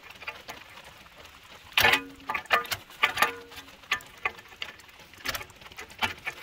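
Adjustable wrench clinking and knocking against an outdoor condenser fan blade's hub and motor shaft as the stuck blade is worked loose. The knocks are irregular, some leave a brief metallic ring, and the loudest comes about two seconds in.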